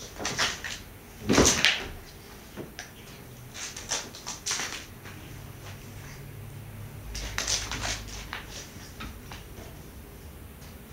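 Scattered bumps, scrapes and rustles of a cat at play, the loudest a thump about a second and a half in, with further bursts of scrabbling near the middle and toward the end.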